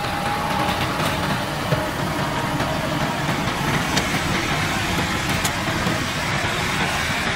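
A 140 hp farm tractor's diesel engine running steadily as it pulls a seed planter.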